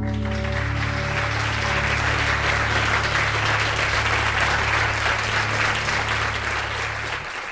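Theatre audience applauding at the end of a live acoustic song, with a low steady tone under the clapping that stops shortly before the end.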